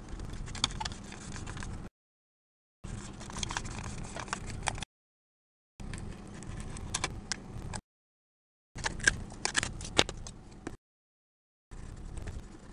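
Aluminium foil crinkling and a hand tool scraping and clicking on it as the foil is pressed into shape over a model airplane's fuselage. The sound comes in stretches of about two seconds broken by second-long dropouts to silence, with the sharpest clicks a little past the middle.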